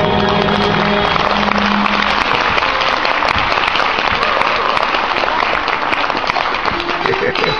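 Audience applauding, as the last notes of the dance music fade out in the first second or two; new music starts near the end.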